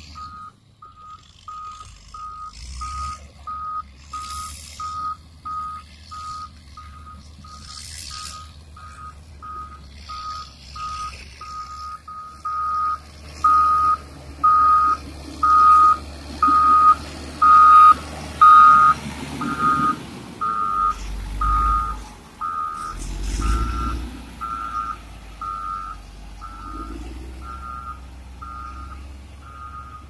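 Caterpillar motor grader reversing, its back-up alarm beeping steadily at about two beeps a second over the low rumble of its diesel engine. The beeps grow loudest midway as the machine passes close, and the engine swells twice in deeper rumbles a little after that.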